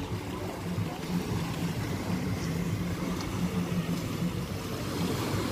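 A low, steady engine drone.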